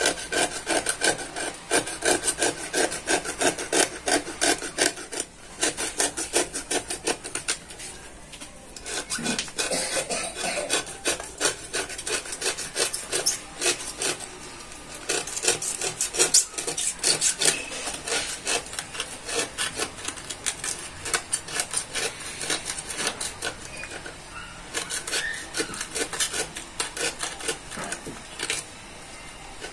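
Utility knife blade scraping and cutting along the edge of glued-on sandpaper to trim off the excess: rapid rasping strokes, broken by a few short pauses.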